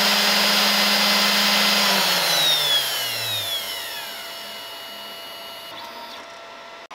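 CNC router spindle with a double-flute upcut bit running at speed on perspex. About two seconds in it is switched off, and its whine and hum fall steadily in pitch as it spins down over the next two seconds, leaving a faint steady hum.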